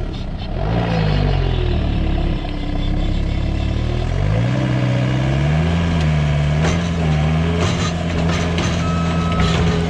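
Manitou skid steer's diesel engine running hard, its pitch sagging and then climbing back and holding steady, with a few clanks. Near the end its backup alarm starts beeping.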